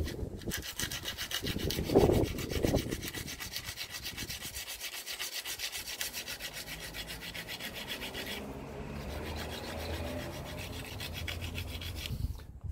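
Hand abrasive rubbed in quick back-and-forth strokes against the curb-rashed rim edge of an alloy wheel, grinding down the damage. The strokes are loudest near two seconds, and from about eight seconds in they go on duller, with less hiss.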